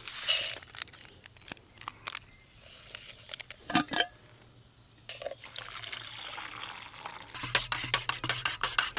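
Instant coffee being made in a metal camp mug: a paper packet torn open, a metal clink, water poured from a stainless steel bottle into the mug for about two seconds, then a spoon stirring quickly with a run of clicks against the mug's sides.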